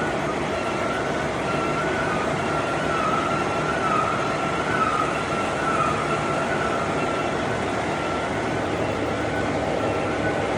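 DIP-500 heavy lathe turning a large metal housing, running steadily with a high, wavering whine over its noise.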